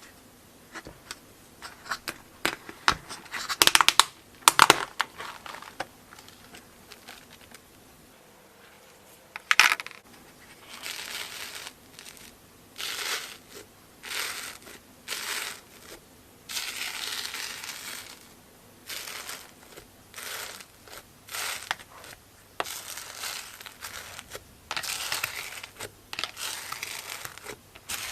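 Crunchy slime squeezed and pressed by hand. Sharp crackles and clicks come in the first few seconds, then a long run of short crinkly crunching bursts, one after another.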